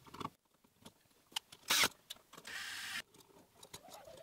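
Small clicks and handling noises from wiring a wall receptacle with hand tools and copper wire. There is one sharp clack a little under two seconds in, and a brief rush of noise lasting about half a second just after it.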